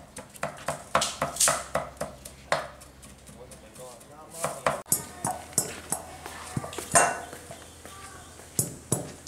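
Pestle pounding mắc mật seeds and other spices in a mortar: a quick run of sharp knocks, about four a second, for the first two and a half seconds, then scattered knocks.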